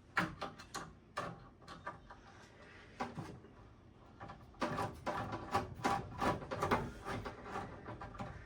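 Screwdriver with an extension working at a stuck screw inside a metal PC case: irregular clicks and knocks, then a dense run of rattling metallic clicks about halfway through.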